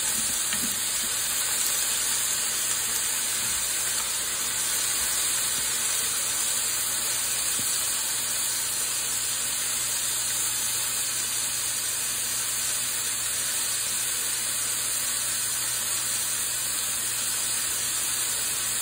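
Pork and vegetables sizzling steadily in a hot frying pan as they are stir-fried with chopsticks, with a faint low hum underneath.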